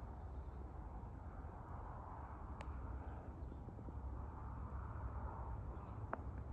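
Faint outdoor background: a steady low rumble with a light hiss, and a couple of soft clicks.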